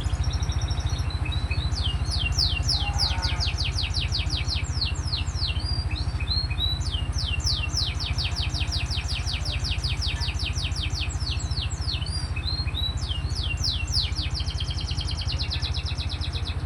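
Songbird singing in long, rapid trills of quick falling notes, several a second, between shorter twittering phrases, over a steady low hum.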